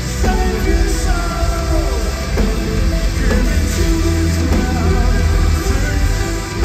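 Progressive metal band playing loud and continuously live in a theatre: electric guitars, bass, drum kit and synthesizer through the PA, heard from within the crowd.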